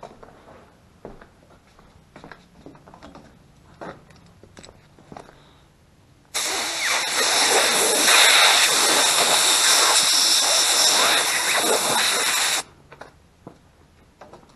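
Compressed-air blow gun blasting a steady hiss for about six seconds, starting suddenly partway through and cutting off sharply, used to blow dirt off carburetor parts during cleaning. Light clicks and knocks of parts being handled come before it.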